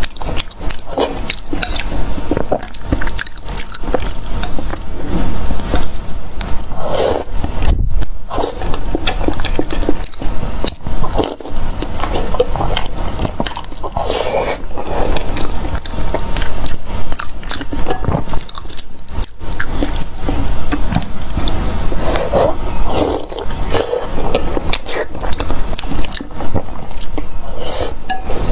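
Close-miked eating: continuous biting and chewing with dense, irregular crackling and scraping clicks.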